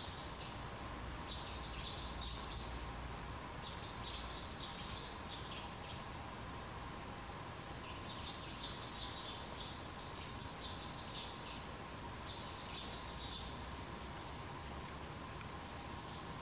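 Outdoor ambience: a steady hiss with a faint steady high whine, while small birds chirp in short runs, about a second in and again from about eight to thirteen seconds.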